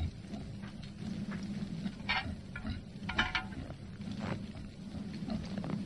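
Reindeer snuffling and chewing with its head in a feed bucket: a few short, noisy snorts and munches over a steady low hum.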